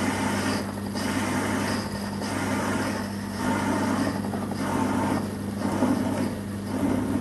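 Small bench metal lathe running with a steady motor hum while the cutting tool turns a cast aluminium workpiece, the cutting noise swelling and fading in stretches of about a second.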